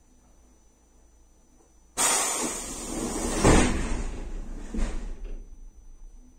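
Pneumatic sliding doors of a PaFaWag EN57 electric multiple unit operating: compressed air hisses out suddenly about two seconds in, followed by two heavy thuds as the doors close, fading away near the end.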